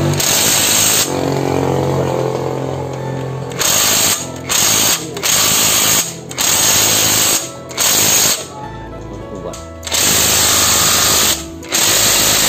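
J-LD cordless impact wrench hammering on a stubborn, tight bolt of a diesel engine, fired in a string of about eight short bursts with brief pauses between.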